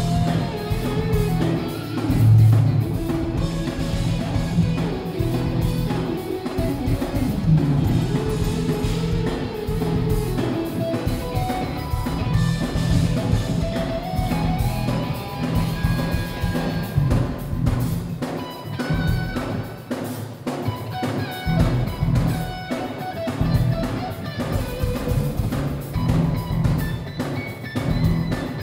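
Live instrumental rock band playing loudly: electric guitar lead over a drum kit and bass guitar. It is heard through a smartphone microphone, so the sound is muffled and the bass muddy.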